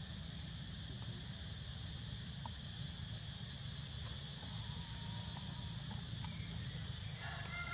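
Steady high-pitched drone of insects in the forest over a low rumble, with a few faint short calls near the end.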